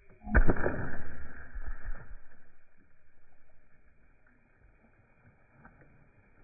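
A speargun powered by two rubber bands is fired down into a pond about a third of a second in: a sharp snap, then the spear splashing into the water, with a noisy tail that fades over the next two to three seconds.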